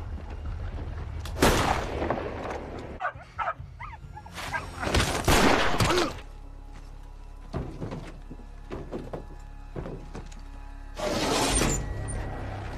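Action film soundtrack: a low, steady music drone with loud, sudden crash and impact effects about a second and a half in, again around five seconds in, and near the end.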